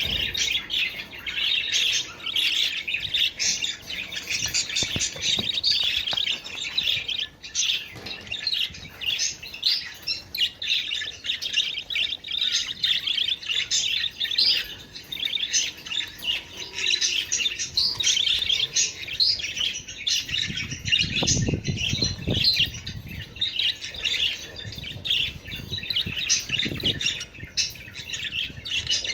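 A group of budgerigars chattering and warbling continuously, with many rapid chirps overlapping. A low rumble comes in twice in the last third.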